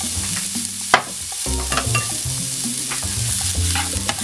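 Minced garlic and ginger sizzling in hot sesame oil in a non-stick frying pan, stirred with a spatula that clicks and scrapes against the pan, with one sharper knock about a second in. A music track with a steady bass line runs underneath.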